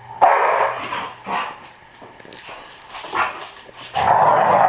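American Staffordshire terrier barking in a few short outbursts with a tennis ball in its mouth, then a longer, louder outburst about four seconds in.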